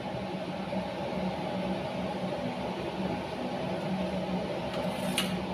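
Homemade oil-fired stove burner running, its blower fan giving a steady hum as the oil flame burns. There is a single sharp click about five seconds in.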